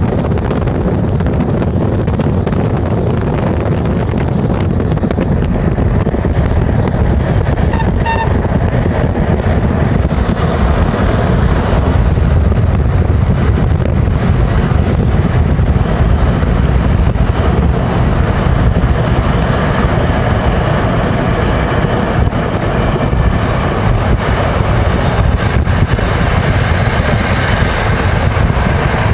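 Steady road and wind noise inside a car travelling at highway speed, dominated by a low rumble.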